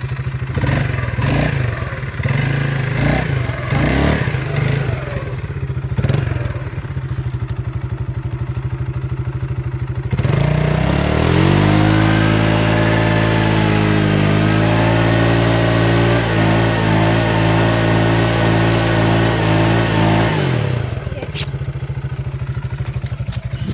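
ATV engine idling, then revved hard about ten seconds in and held high for about ten seconds before dropping back to idle.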